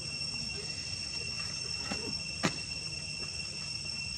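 Steady, high-pitched drone of insects, with a single sharp click about two and a half seconds in.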